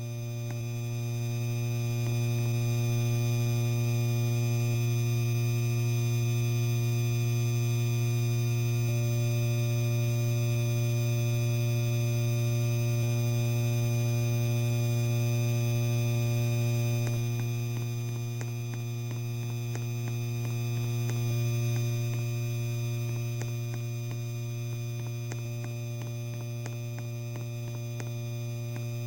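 Electric fan motor running with a steady low hum and fainter higher steady tones, easing a little in the second half, with faint ticks.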